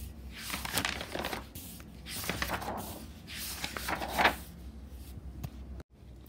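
Paper pages of a spiral-bound sketchbook being turned by hand: three rustling swishes about a second apart.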